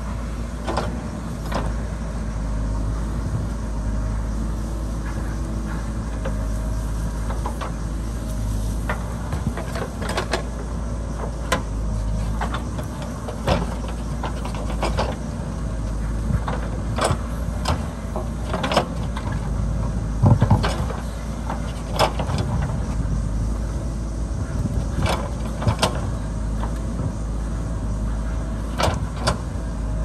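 JCB backhoe loader's diesel engine running steadily while digging, with many sharp clanks and knocks of the bucket and arm against rock and soil; the loudest knocks come about two-thirds of the way through.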